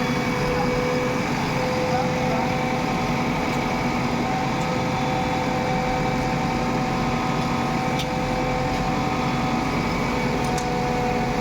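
Diesel engine of heavy machinery running steadily, with a steady whine over the engine noise.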